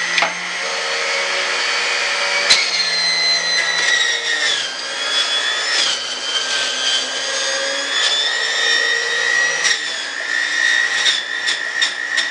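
Red electric juicer running with a high motor whine as celery and vegetables are pushed down its feed chute, the pitch wavering and dipping as the load changes. There is a sharp knock about two and a half seconds in, and a few clicks near the end.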